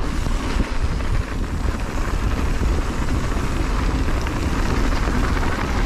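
Wind buffeting the microphone of a rider's camera over the noise of mountain bike tyres rolling on a hardpack dirt trail: a steady, deep rumble with hiss.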